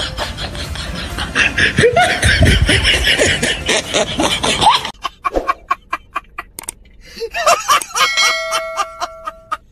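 A man laughing hard in rapid bursts, after a few seconds of loud, noisy commotion. A brief steady ringing tone sounds near the end.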